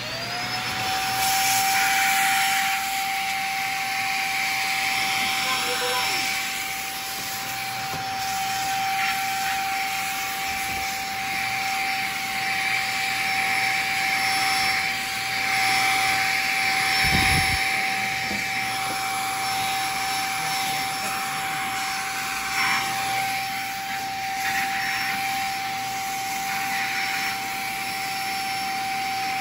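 Deerma DX1000 handheld vacuum cleaner switching on, its motor whine rising quickly to a steady high pitch, then running with a constant rush of suction air. There is one brief low bump about halfway through.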